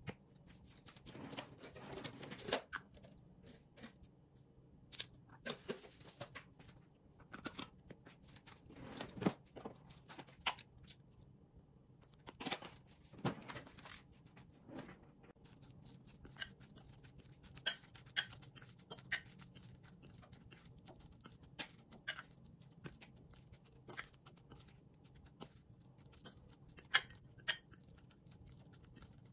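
Irregular clinks, taps and scrapes of metal utensils against a glass bowl as starch and seasoning go onto grated potato, which is then mixed with a fork. The sharp clinks come thickest in the second half.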